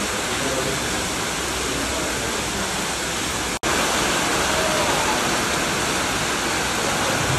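Hailstorm runoff: a steady, loud rush of water and hail pouring down dugout stairs and onto a flooded concrete floor. The sound breaks off for an instant about three and a half seconds in, then carries on slightly louder.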